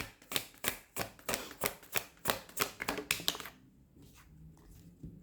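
Tarot cards being shuffled by hand: a quick run of sharp card slaps and clicks, about five a second, that stops about three and a half seconds in.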